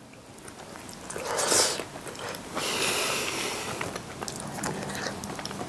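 A person biting into and chewing a piece of bacon-wrapped baked pumpkin, close to the microphone. There is a loud bite about a second and a half in, then chewing from about two and a half seconds on.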